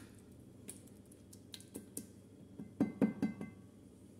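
Faint background music with a few plucked-string notes, clustered about three seconds in, over scattered soft clicks.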